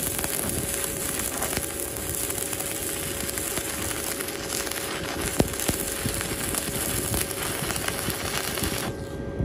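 Stick-welding (shielded metal arc) arc crackling and sizzling steadily as the electrode lays a bead joining two overlapped steel rods, with one sharp pop about five seconds in. The arc cuts off suddenly near the end.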